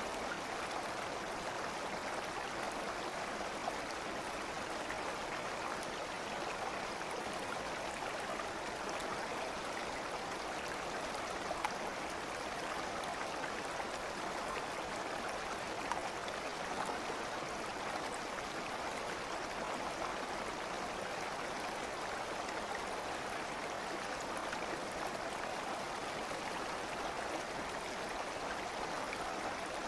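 Steady running water of a stream, a continuous even rushing babble, with a few brief louder blips.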